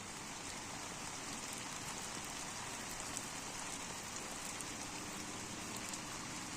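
Steady rain falling, an even hiss with faint patter of drops.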